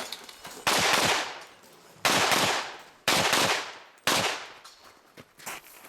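Rifle fire: four shots about a second apart, the first a little under a second in, each followed by a short fading echo.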